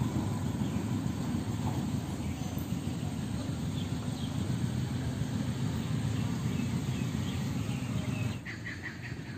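Steady low outdoor rumble with faint bird chirps above it; near the end the rumble eases and a bird gives a quick run of chirps.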